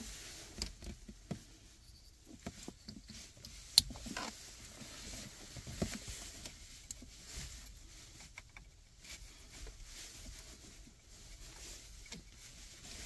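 Plastic wiring-harness connectors and wires being handled and fitted under a car's steering column: scattered small clicks and rustling, with one sharp click about four seconds in.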